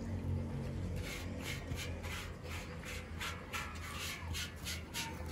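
Steel dishes and utensils scraping and rubbing in quick irregular strokes, about three a second, starting about a second in, over a steady low hum.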